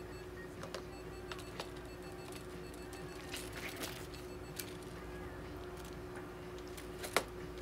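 Steady low hum with scattered light clicks and taps of hands handling a cat, its plastic cone collar and a syringe on a metal exam table; one sharper click near the end.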